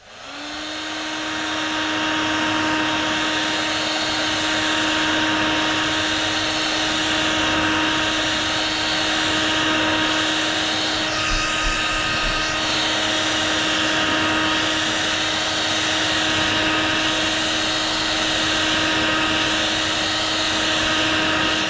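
Heat gun blowing hot air to soften the adhesive under a phone screen: a steady motor hum over a loud rush of air. It spins up at the start and is switched off at the end.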